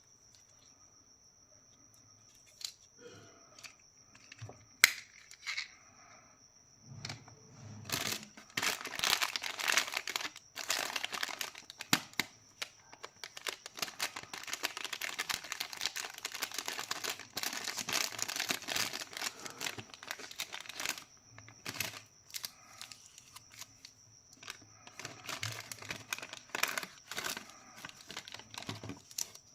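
Plastic candy wrappers being crinkled and torn open by hand, with a few sharp clicks. The crackling is sparse at first, dense and loud from about eight seconds in to about twenty-one seconds, then sparse again.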